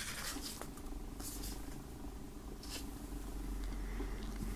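Faint paper handling as a CD booklet is held and its pages shifted: a few soft rustles and touches over a steady low hum.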